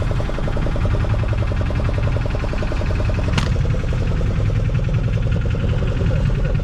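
A fishing boat's engine running steadily with an even, rapid pulse, and one sharp click about three and a half seconds in.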